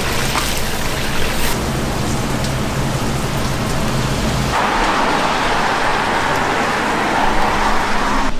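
Hot oil sizzling as battered pieces deep-fry in a wok, a steady hiss. About four and a half seconds in, the hiss changes to a narrower, duller sound.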